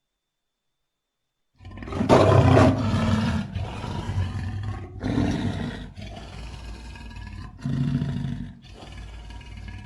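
Custom monster roar sound effect, layered from film-monster and animal roars such as lion and grizzly bear. It starts about a second and a half in with one loud, deep roar, then goes on as several shorter, quieter roars.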